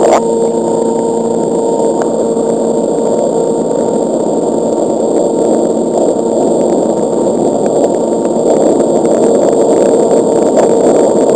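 Electric underwater scooter running, a steady motor whine over loud rushing water, heard through a camera in the water.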